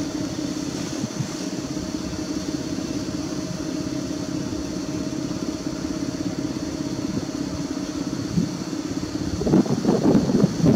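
PKP EP07 electric locomotive standing still with its auxiliary machinery humming steadily. A louder, uneven rumbling comes in near the end.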